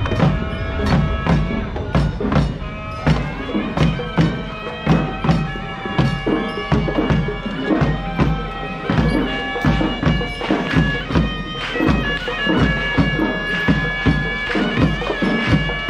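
Traditional Kandyan perahera music: a shrill reed pipe of the horanewa type holds long, wavering notes over drums beating a fast, steady rhythm.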